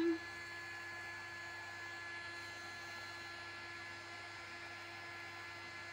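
A steady low electrical hum with a few faint steady whining tones, unchanging throughout.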